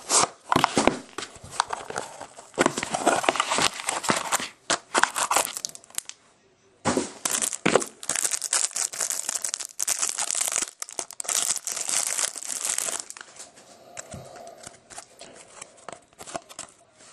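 Crinkling and tearing of the wrapping on a box and pack of 2007 Leaf Limited football trading cards as they are opened. There is a short pause about six seconds in, the busiest tearing just after it, and quieter rustling of the cards being handled near the end.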